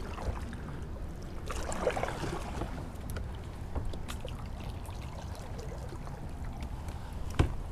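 Water splashing and trickling around a kayak under way, over a low steady rumble, with one sharp knock near the end.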